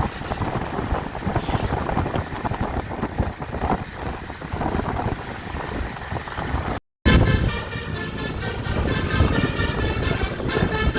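Noisy roadside sound without a clear tone. After a cut about seven seconds in, a bus's multi-trumpet telolet (basuri) horn plays a tune in chords of several notes at once.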